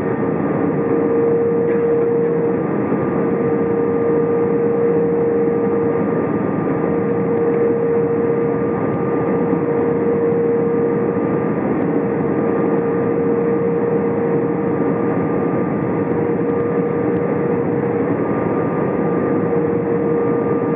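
Steady cabin noise inside an Airbus A320 on approach: engine and airflow noise over the wing, with a steady hum.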